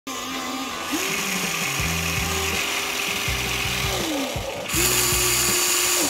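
Electric motors of a Huina remote-control excavator whining as the arm moves, the pitch gliding up as a movement starts, holding, and gliding down as it stops, then starting again near the end along with a rushing hiss. Background music plays underneath.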